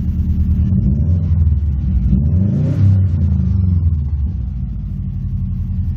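Subaru WRX STI's turbocharged flat-four engine idling and revved once with a blip of the throttle: the revs climb for about two seconds, peak near the middle, then drop back to a steady idle. Heard from inside the cabin.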